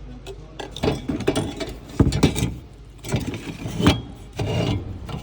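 Irregular clicks, knocks and rattles of the fuel filter unit and its fuel line being handled and fitted back together, with a couple of sharper knocks about two and four seconds in.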